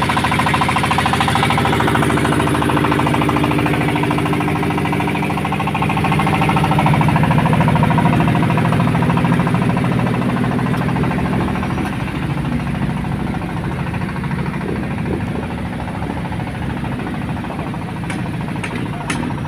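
An engine running steadily with a rapid knocking beat. It grows louder in the middle and eases off after about twelve seconds, with a few sharp clicks near the end.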